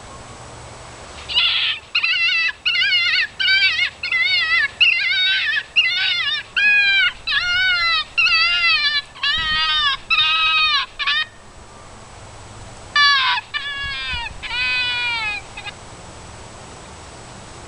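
Foxpro electronic predator call playing a fox kit distress sound: a long run of wavering, whining cries, about two a second, then a pause and four more cries.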